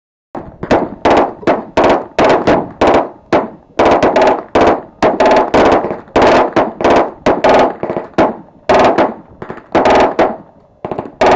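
Machine gun firing a long string of single shots, about two to three a second, each with a ringing tail, as rounds strike a steel car door. The shots start about a third of a second in.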